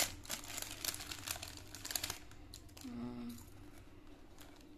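Foil chocolate-bar wrapper crinkling in a child's hands, a rapid run of crackles for about two seconds that then thins to a few scattered crackles. A brief vocal sound about three seconds in.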